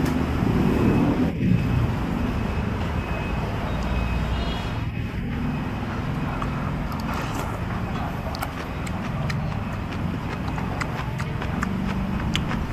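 Steady rumble of road traffic. From about halfway on it is overlaid by light, scattered clicks of a metal spoon and chopsticks against a bowl.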